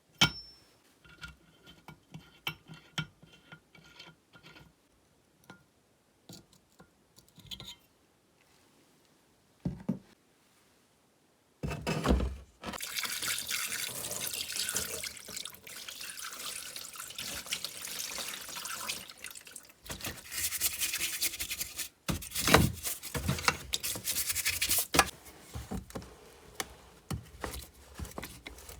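Light clicks and taps of small chainsaw parts being handled. About twelve seconds in, water starts running steadily onto the parts as they are washed, with a few brief breaks in the flow.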